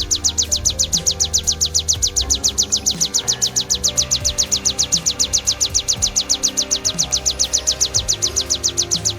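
Ciblek (bar-winged prinia) song: a fast, even string of high, sharp notes, about nine a second, repeated without a break. Soft background music plays underneath.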